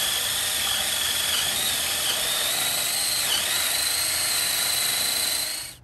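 Cordless drill on its speed-three setting driving a Lenox hole saw through a wooden board: a steady motor whine over the rasp of the saw teeth, dipping briefly about three seconds in as the saw loads up, then cutting off suddenly near the end.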